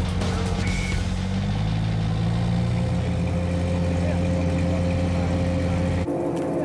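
Drag-race truck engine idling steadily while waiting to launch. The pitch holds almost constant, and the engine sound changes near the end.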